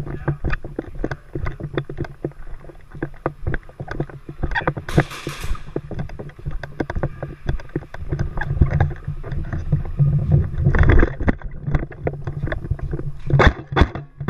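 Irregular sharp clicks and knocks from airsoft guns firing and player gear, over a steady low rumble of movement and wind on a body-worn microphone, with a short hiss about five seconds in.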